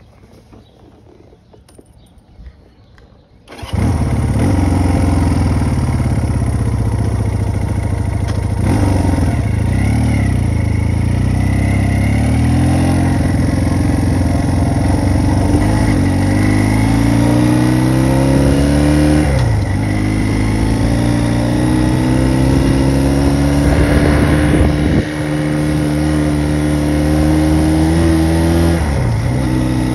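1974 Honda CB200's twin-cylinder engine starts about four seconds in and runs as the motorcycle is ridden. Its pitch climbs slowly and drops back suddenly three times as the gears are shifted.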